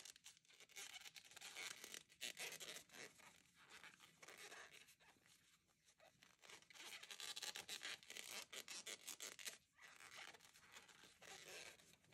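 Faint, intermittent rustling and scraping of a crochet hook pulling t-shirt yarn through tight stitches, in uneven stretches with short pauses between them.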